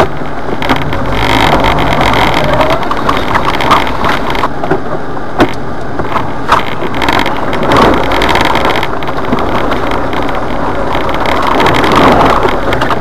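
Jeep Wrangler's engine running as it crawls over a rough, rocky dirt trail, heard from inside the cab, with scattered sharp knocks and rattles as the vehicle jolts over rocks and ruts.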